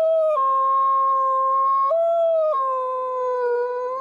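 A single wolf howling alone, a long mournful howl with no other wolves joining in. It holds one high note, steps down to a lower note about half a second in, jumps back up near the two-second mark, then drops again and sags slightly.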